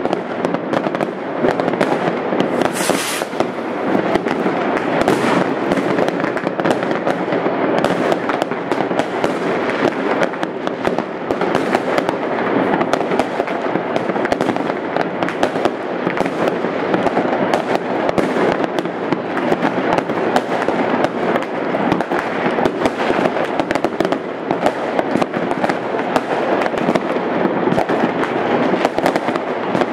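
Many fireworks and firecrackers going off at once: a dense, continuous barrage of bangs and crackles, with a brief high hiss about three seconds in.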